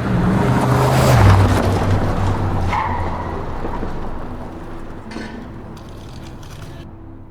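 An engine running with a low hum that swells to its loudest about a second in, drops a little in pitch, then slowly fades away.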